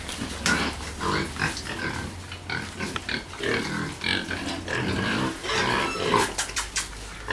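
Several pigs grunting in many short, overlapping calls as they crowd together.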